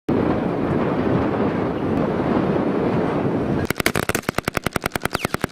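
A steady rushing noise, then, a little past halfway, automatic gunfire: one fast burst of about ten shots a second lasting nearly two seconds.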